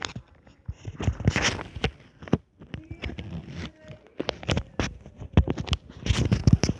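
Close-miked eating of ramen noodles: irregular chewing with many small wet clicks and smacks, and a couple of longer noisy stretches, about a second in and near the end.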